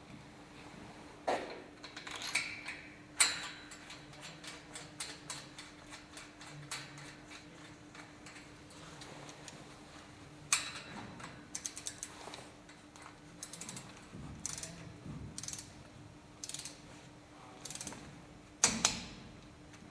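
Irregular mechanical clicks and clanks, with a few sharper knocks and stretches of rapid ratchet-like ticking, over a faint steady hum.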